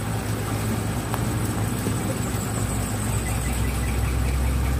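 A steady low rumbling hum with no clear events; the deepest part of it grows stronger about three seconds in.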